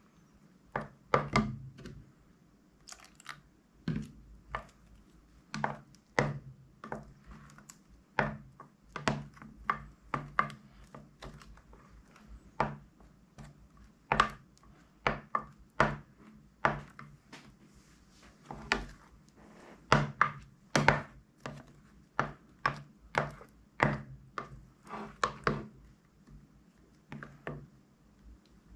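Plastic spoon stirring and scooping thick slime in a glass dish: irregular sharp clicks, taps and sticky pops, about one or two a second.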